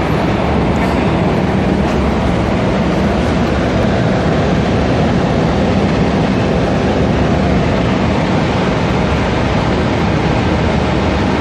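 Steady, loud mechanical running noise with a low hum, most likely a car engine running close to the microphone.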